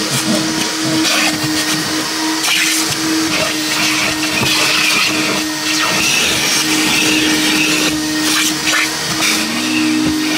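Coin-operated car-wash vacuum running with a steady hum, its hose nozzle sucking over a car's seats and carpet. The rush of air changes a little as the nozzle moves.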